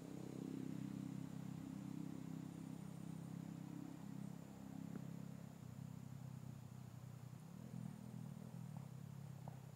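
A low, steady engine hum, shifting slightly about six seconds in.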